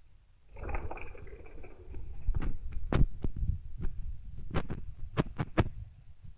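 Irregular muffled thumps and sharp clicks over a low rumble, starting about half a second in: handling noise from a handheld recording device being moved about.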